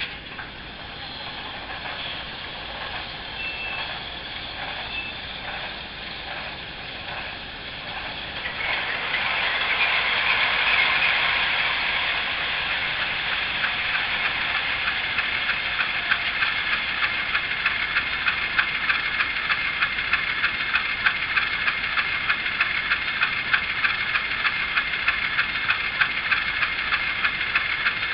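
ESU LokSound decoder's recorded GE U28C diesel engine sound, played through the HO scale model's small speaker. It builds up over the first ten seconds, typical of a start-up sequence, then settles into a steady run with an even beat of about three pulses a second.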